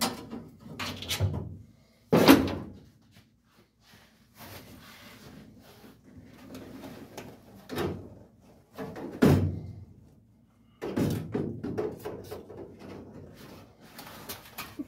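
Metal clunks and knocks from tools and parts being worked loose under an old truck's steel dash, with rattling and scraping between them. The loudest knocks come about two seconds in and again about nine seconds in.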